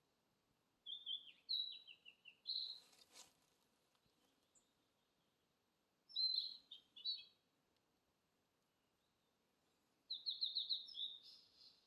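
Wild songbird song: three phrases of high, quick notes and trills several seconds apart, some phrases stepping down in pitch. A short burst of noise comes about three seconds in.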